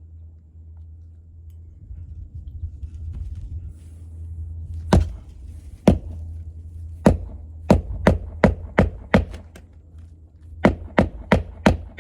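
Hammer driving roofing nails through asphalt shingles: two single blows, then a quick run of about seven strikes, then four more near the end, over a steady low rumble.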